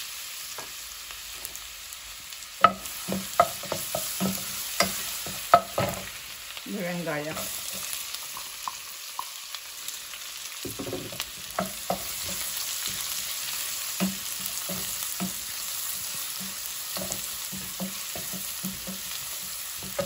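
Spices, ginger-garlic paste and then chopped onion sizzling in hot oil in a pot, stirred with a wooden spoon. A run of sharp knocks comes in the first few seconds, and quick light taps and scrapes of the spoon follow in the second half.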